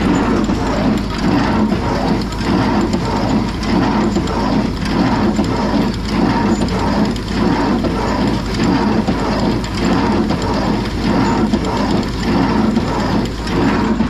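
Oliver 520 baler running empty, its mechanism clattering steadily in a regular pulsing rhythm.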